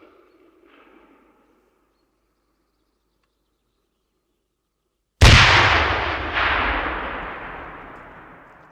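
An explosion blast. The tail of an earlier blast fades out, followed by a few seconds of silence. About five seconds in comes a sudden loud blast with a deep low end and a smaller second crack a second later, which dies away slowly over about three seconds.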